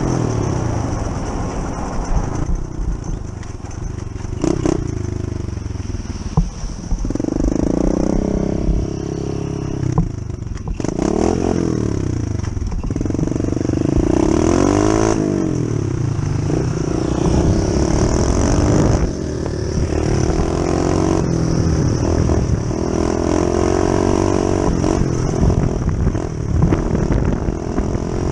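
Small off-road motorcycle's four-stroke single-cylinder engine under way on a dirt trail, its pitch repeatedly rising and falling as the rider works the throttle and gears.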